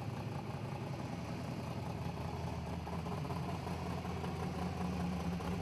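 Off-road racing buggy's engine running steadily as it works up a steep dirt slope, a low drone whose note grows stronger over the second half.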